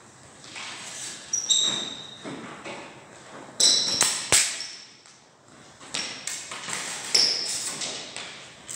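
Steel smallsword blades clashing and ringing in three short exchanges of blade contact, with a few sharp knocks in between.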